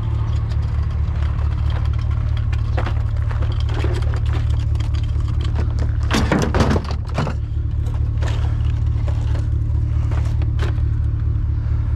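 A vehicle engine running with a steady low hum, under clicks and knocks of items being shifted while rummaging through a box of trash. The loudest rattle comes about six seconds in.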